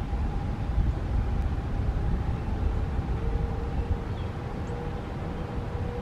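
Wind buffeting the microphone, with distant T-128 outdoor warning sirens sounding faintly as steady held tones. A second, lower siren tone joins in about halfway through.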